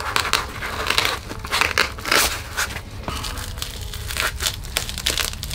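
Gloved hands handling an EVA foam arm piece and pressing its Velcro seam closed: an irregular run of short crinkling, crunching and scratching noises.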